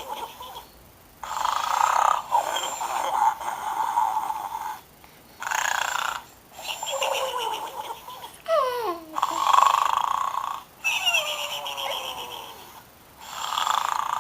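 Snoring pig: repeated rounds of snoring, each a second or two long with short pauses between, several of them ending in a falling whine.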